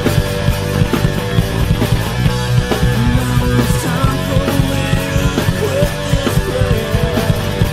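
Rock band playing loud, fast, punk-style rock with electric guitar, bass and drums, heard from an old, poorly recorded tape.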